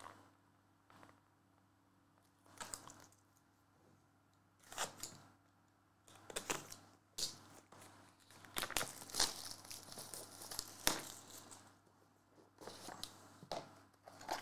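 Plastic shrink wrap crinkling and tearing as it is pulled off a sealed trading-card box, in irregular bursts that are busiest in the middle, with some handling of the cardboard box.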